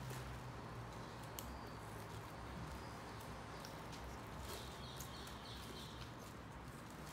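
Faint handling sounds of gloved hands working the drysuit's zipper and fabric: a few soft clicks and rustles over a steady low hum. A short run of high chirps comes about four and a half seconds in.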